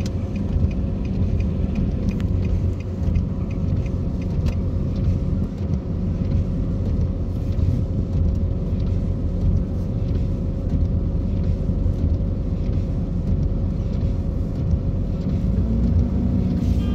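Steady low rumble of a car's engine and tyres on a wet road, heard from inside the cabin while creeping through traffic.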